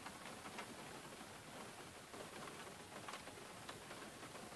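Rain falling: a faint steady hiss with raindrops ticking irregularly against the window.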